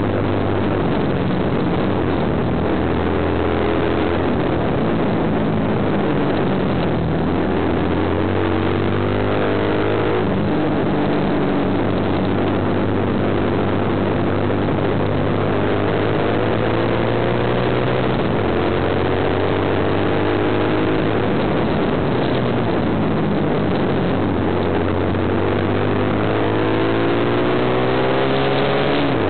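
Kawasaki KSR110's single-cylinder four-stroke engine, heard on board while lapping a mini-bike circuit: its note climbs several times under acceleration and drops back between climbs as the rider shifts and eases off for corners, with wind rushing over the microphone.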